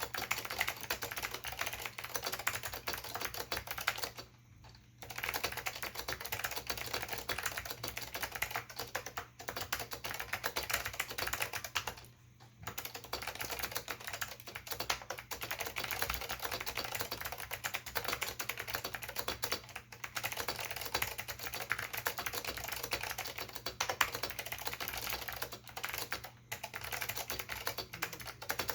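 Fast, continuous typing on an Acer KB-101AS keyboard with clicky Alps SKCM Blue switches, a dense stream of key clicks with brief pauses about four and twelve seconds in.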